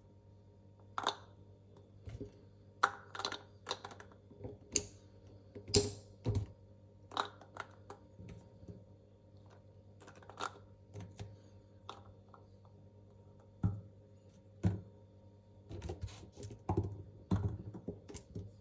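Velvet-coated toy sticks being handled and sorted: irregular light clicks and taps, some in quick little clusters, over a faint steady hum.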